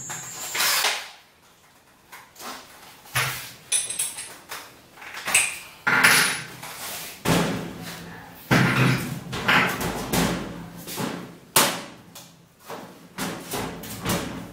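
Irregular knocks, bangs and thumps from handling and fitting a wall-hung kitchen cabinet. Some are sharp single knocks, others are longer and noisier, about 6 and 9 seconds in.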